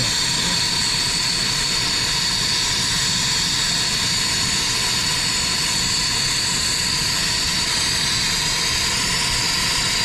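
Brazing torch flame burning steadily with an even hiss as it heats a crimped copper refrigerant pipe stub for brazing it shut.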